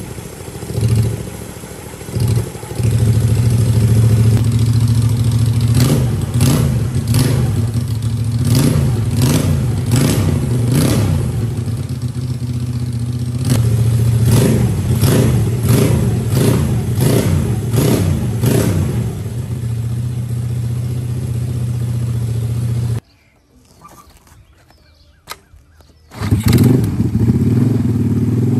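Homemade 250cc L-twin engine, built from scooter engines, running through an open aftermarket exhaust, with a run of sharp quick blips about twice a second in the middle. It drops out for a few seconds near the end and then is running again.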